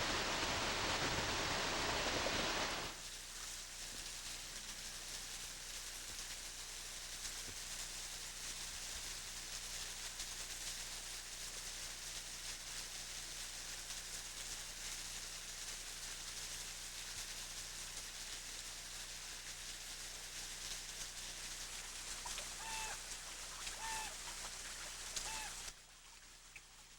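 Loud rushing noise like running water that cuts off about three seconds in, leaving a steady hiss. Near the end a bird gives a few short calls.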